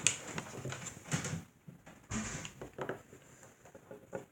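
Small plastic toy pieces being handled and set down, giving scattered light clicks and rustles.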